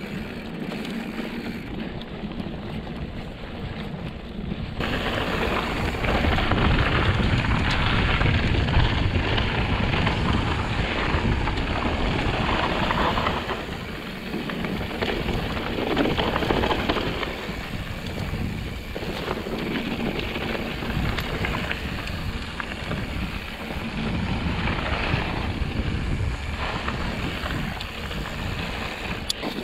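Wind buffeting the camera microphone over the rumble and rattle of a mountain bike rolling down a dirt trail. It gets louder and rougher about five seconds in, then swells and eases in gusts.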